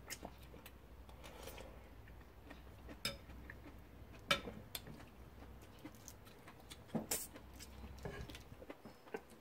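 Light clicks and taps of chopsticks and a spoon against ceramic bowls during a meal, with a few sharper clinks, the loudest about seven seconds in.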